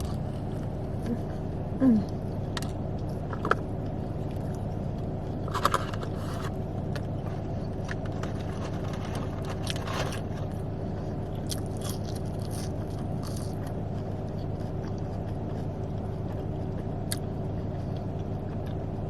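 Steady hum of a car's engine and air conditioning running, with faint chewing and a few soft clicks and crackles from eating.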